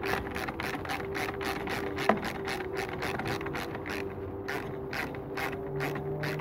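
Hand ratchet clicking as it runs a 13 mm nut down onto the battery terminal and fuse connections, about six clicks a second at first and slower near the end, with one sharper click about two seconds in.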